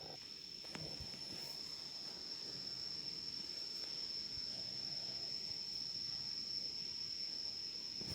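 A steady, high-pitched insect trill that holds one pitch without a break.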